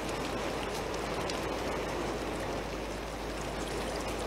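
Steady rain falling and splashing on wet pavement.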